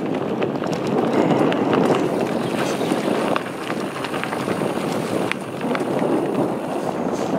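Steady crunching and rustling of travel along a dry dirt forest path, with scattered small clicks over a constant noisy rumble.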